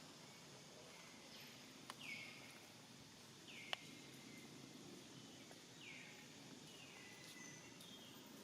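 Faint outdoor ambience with a bird calling over and over: a short high call that sweeps downward, repeated every second or two. A single sharp click just before the middle is the loudest moment.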